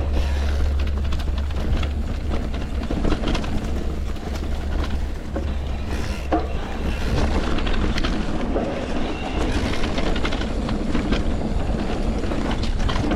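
E-bike ridden over a rough dirt trail: wind rumbling on the camera microphone, tyre noise and frequent clicks and rattles from the bike over bumps.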